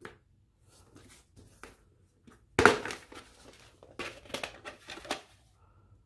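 Red plastic VHS clamshell case being handled and snapped open, with one sharp crack about two and a half seconds in, followed by a quick run of plastic clicks and rattles as the videocassette is lifted out of it.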